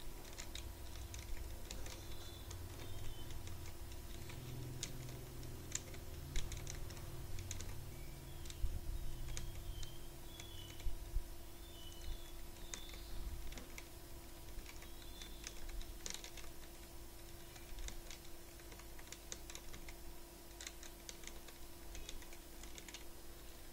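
Computer keyboard typing: scattered, faint keystrokes as numbers are entered cell by cell into a data table.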